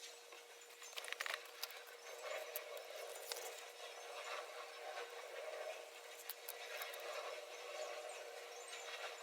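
Pencil scratching on paper during colouring, a continuous rasping with a few sharp light clicks, clustered about a second in and again a little past three seconds.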